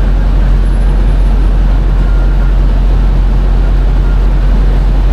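Steady low rumble of idling diesel truck engines with an even rushing hiss, while diesel is pumped through the nozzle into a semi-truck's fuel tank.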